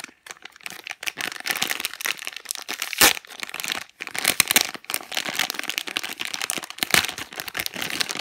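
Crinkling plastic packaging of a squishy toy being handled, a dense run of crackling with a few sharper, louder crackles along the way.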